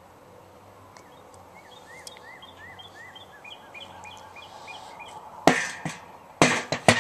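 A songbird singing a run of quick, evenly repeated chirps, about three a second, for a few seconds. Then a sharp knock, and near the end a quick cluster of knocks that are the loudest sounds.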